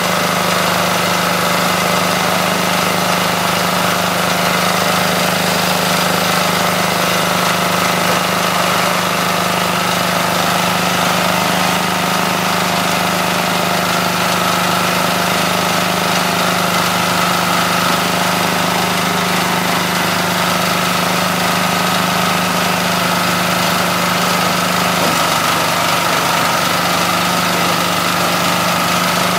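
Small single-cylinder diesel engine running steadily at a constant speed, driving a coconut-frond shredder while fronds are fed in.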